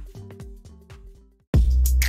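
Background music: a melodic track with soft rhythmic hits fades out, and about a second and a half in a different track starts abruptly with a heavy bass and loud electronic drum hits.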